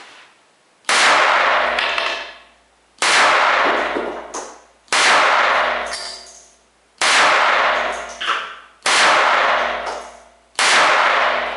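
Astra Firecat .25 ACP pocket pistol fired six times, about two seconds apart. Each sharp shot is followed by a ringing tail lasting more than a second.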